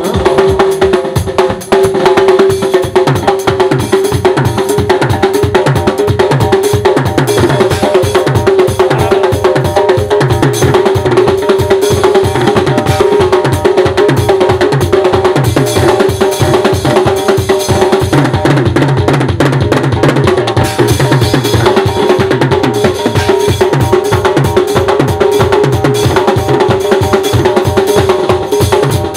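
Live band playing a fast, dense beat on a drum kit and a doira frame drum, over a steady held keyboard tone.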